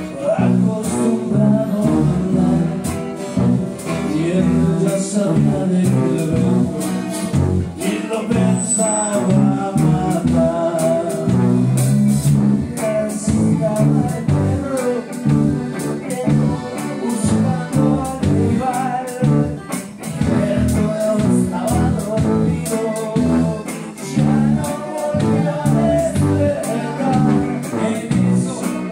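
Live band playing a song with lead singing, led by guitars over a tuba bass line with keyboard and a steady beat.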